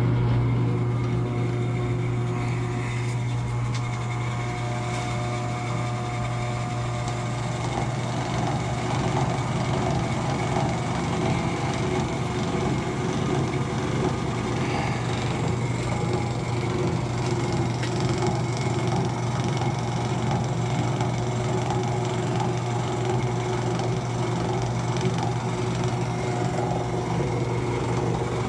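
1955 Diamond horizontal milling machine running steadily in its horizontal arbor setup, a constant motor and drive hum.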